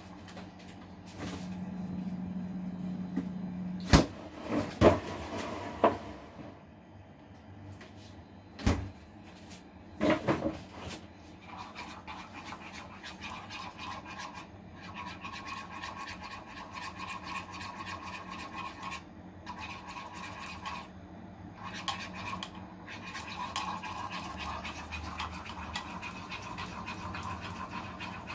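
Containers and utensils knocked and set down on a kitchen counter, several sharp knocks in the first third. After that a steady electric hum runs, cutting out briefly twice.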